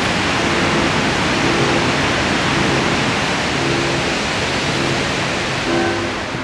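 Waterfall and whitewater cascade in a rocky creek gorge, a loud, steady rush of water that eases off near the end.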